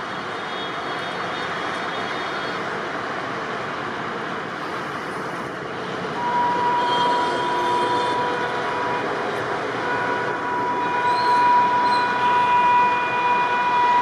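Passenger train hauled by an electric locomotive approaching: a steady rumble of wheels on track that grows louder, joined about six seconds in by a steady high-pitched tone that holds on.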